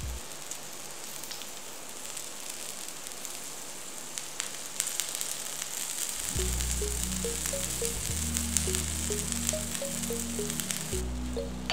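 Oil sizzling and crackling steadily under hoy krok batter cakes frying in a cupped pan. Background music with a bass line comes in about six seconds in.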